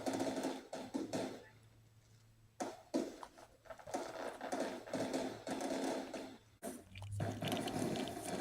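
Recorded fireworks crackling and popping, played at low volume through a small speaker as a dog-desensitization track; a quieter lull about two seconds in before the crackling picks up again.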